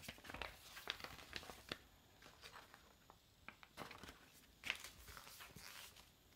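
Faint, scattered crinkling and rustling of plastic snack packaging being handled, with a few sharper crackles.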